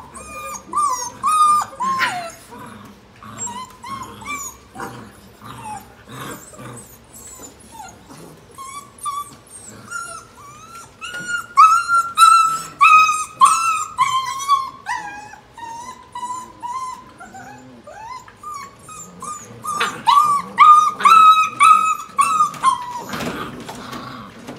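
Six-and-a-half-week-old Boerboel puppies whining and yipping in many short high calls, with louder bouts about a second in, around the middle and again near the end.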